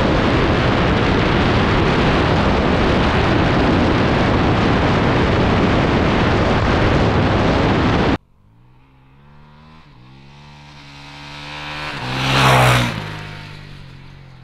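Loud, steady wind rush over the camera on a 2021 Honda CRF450RL riding a gravel road. After about eight seconds it cuts off suddenly, and the bike's single-cylinder four-stroke engine is heard approaching, growing loud, passing close by and fading away.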